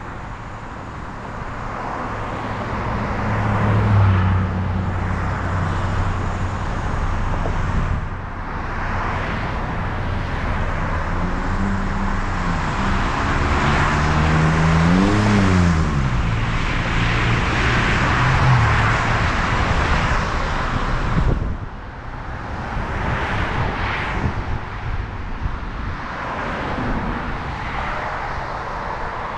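Road noise of a car driving in traffic: a steady rush of tyre and wind noise with an engine hum that rises and then falls in pitch through the middle. The noise drops off suddenly about three-quarters of the way through.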